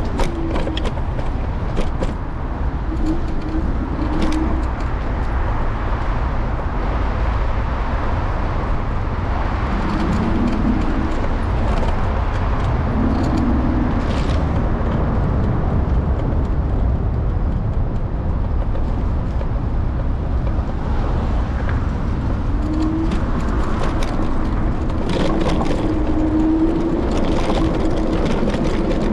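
Wind rushing over a handlebar-mounted camera and road rumble during an electric scooter ride among city traffic, with scattered light knocks and a few short steady hums.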